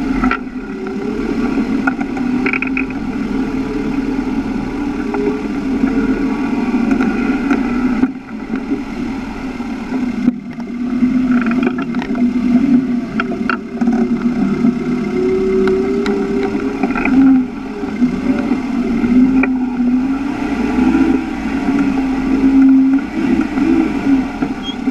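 Toyota Hilux 3.0 turbo-diesel engine and driveline labouring at low speed while the truck crawls over rough ground, heard from under the chassis. The engine note rises and falls as it works, and a few sharp knocks come in the second half.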